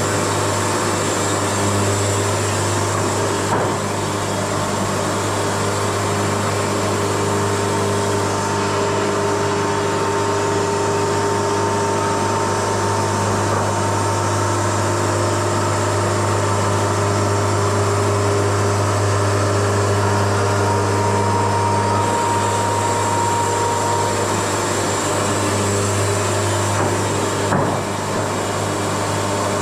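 Wood-Mizer LT70 band sawmill running steadily with a constant low engine hum, with a thin high whine joining in for a stretch in the middle.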